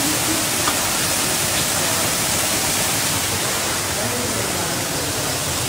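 Rushing river water over rocks, a steady, even hiss with no breaks.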